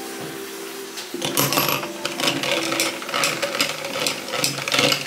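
A glass straw stirring an iced green drink in a tall glass, clinking rapidly and irregularly against the glass and ice. It starts about a second in, over soft background music.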